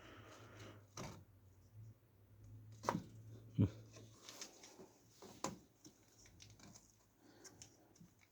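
A few light plastic clicks and knocks from handling a RAM stick and the motherboard's DIMM slot latches, the sharpest two close together about three seconds in and another about five and a half seconds in. A low steady hum fades out about halfway through.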